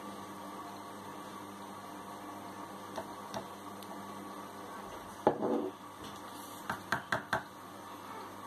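A steady electrical hum with a few light clicks, then one louder knock a little past the middle and four quick taps near the end. These are small kitchen handling sounds: a plastic measuring spoon, a ceramic bowl and a glass oil bottle touching the bowl and the countertop as oil is measured into a marinade.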